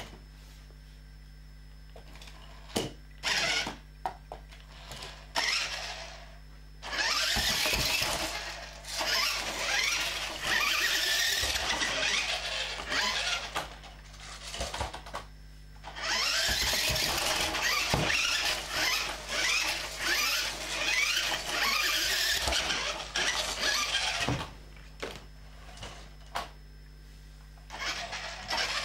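Maisto RC monster truck's electric drive motor and gearbox whirring, first in short bursts, then in two long runs of about eight seconds each, with clicks and knocks from the toy in between.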